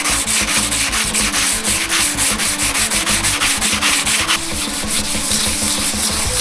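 Rapid abrasive rubbing strokes, sanding or scrubbing at a surface, about six a second, over background music.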